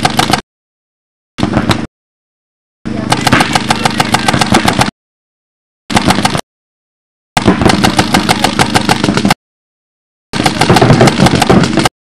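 Paintball marker firing in rapid strings of sharp pops, each string lasting from half a second to about two seconds. The sound cuts out completely between strings, about five times.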